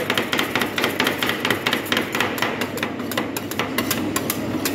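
Two metal spatulas chopping and scraping ice cream mix on a steel cold plate: rapid, irregular metallic clacks, several a second.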